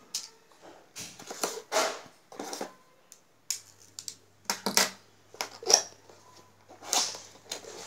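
A cardboard product box and its packaging being opened and handled: irregular rustles, scrapes and crinkles in short bursts.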